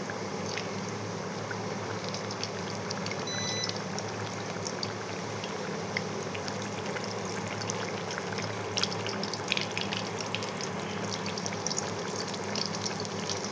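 Tel pitha batter deep-frying in hot oil in a karai: a steady sizzle with scattered small crackles and pops as the cake bubbles and puffs.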